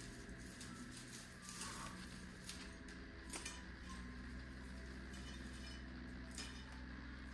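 Faint, occasional light clinks and knocks of small household items being handled, over a steady low hum.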